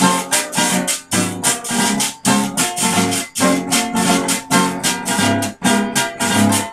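Two acoustic guitars strumming chords with picked bass runs in an instrumental break, while a hand-held metal percussion instrument marks a steady rhythm of sharp, bright strokes several times a second.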